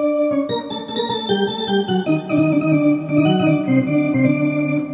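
Wersi Helios electronic organ being played: sustained chords under a moving melody line, notes changing several times a second, starting abruptly. The organ is working again after its circuit board repair.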